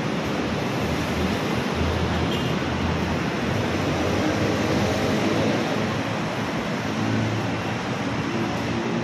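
Steady road traffic noise: a continuous even rush of vehicles passing on a busy multi-lane city road.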